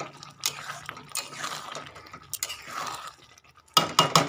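Spatula stirring a thick potato-and-paneer curry in a metal pan: wet squelching with scrapes and clicks of the spatula against the pan, and a quick run of sharper knocks near the end.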